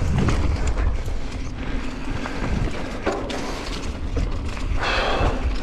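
Wind buffeting the microphone as a mountain bike descends a rough trail at speed, with the rattle and knocks of the bike over the ground throughout, and a short louder hiss of noise about five seconds in.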